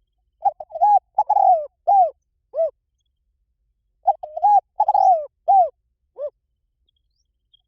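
Spotted dove cooing in two phrases, each a quick run of coos ending in a few longer arched notes, with a pause of about a second and a half between them. It is a decoy call recording of the kind used to draw wild spotted doves in.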